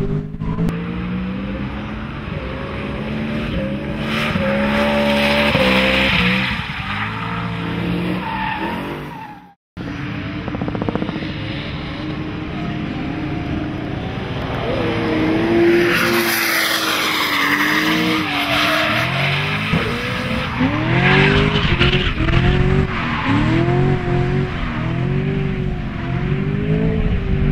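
BMW E92 M3 drift car's supercharged V8 revving up and down through long drifts, with the tyres squealing and screeching as they spin. The sound cuts out for a moment about a third of the way in, and near the end the revs rise and fall in quick pulses, about one a second.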